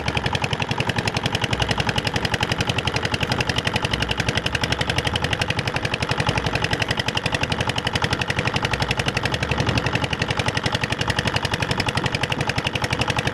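Small boat engine running steadily, a rapid, even popping of about a dozen beats a second.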